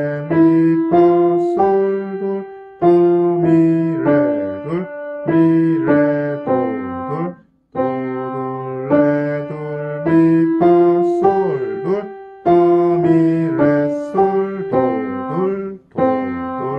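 Piano playing a simple children's-song melody one note at a time with the right hand, at a slow practice pace, with a short break about halfway through.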